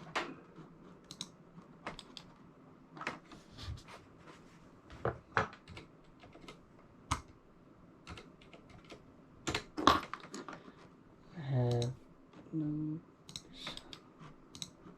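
Typing on a computer keyboard: irregular clusters of keystrokes and clicks.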